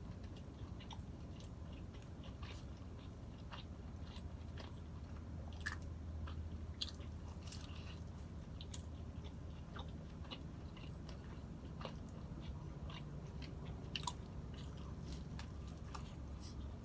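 Close-miked chewing and biting of a sausage, egg and cheese croissant sandwich: soft wet mouth sounds with scattered small crunchy clicks over a low steady hum.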